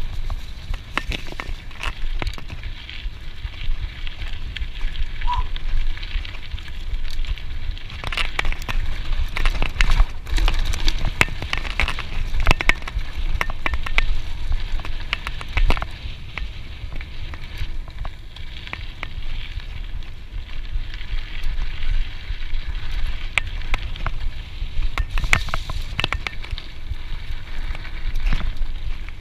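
Scott Genius full-suspension mountain bike rolling over dry dirt singletrack: the tyres crunch over dry leaves, twigs and grass in a dense run of small clicks and crackles, with knocks and rattles from the bike over bumps. A low rumble of wind on the helmet camera's microphone lies under it.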